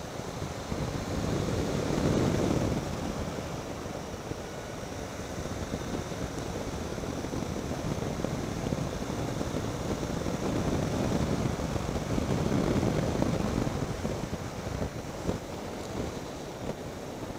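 Wind rushing over the microphone while riding a Triumph Tiger 800 XCx on a dirt road, with the motorcycle's running and tyre noise mixed in under it. The rush swells louder about two seconds in and again around ten to thirteen seconds in.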